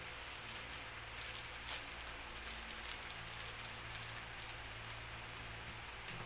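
Packaging crinkling and rustling as it is handled by hand: a run of light crackles, the sharpest nearly two seconds in, dying away after about five seconds, over a steady background hiss.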